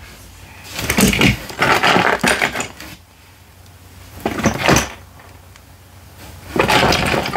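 Small plastic toy pieces, Lego among them, clattering and rattling in a hand as they are picked out of a cardboard box, in three bursts of handling with short pauses between.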